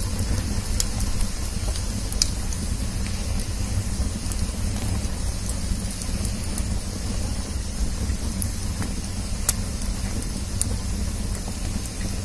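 Wood fire burning in a brick fire pit, crackling steadily with a few sharp pops, the loudest about two seconds in and again about nine and a half seconds in, over a steady low rumble.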